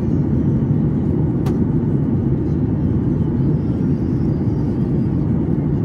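Steady low roar inside the cabin of a Boeing 737 MAX 8: engine and airflow noise from its CFM LEAP-1B engines, with one sharp click about a second and a half in.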